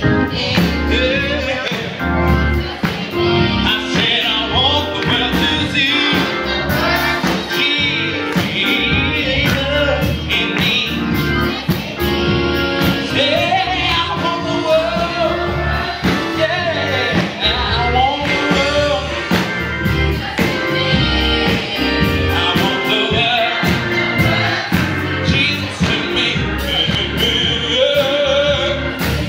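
Children and youth gospel choir singing live to instrumental accompaniment with a steady beat and a heavy bass.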